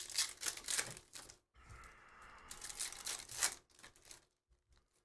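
Silver foil trading-card pack torn open and crinkled by hand: a run of irregular crackling rips and crinkles that die away near the end.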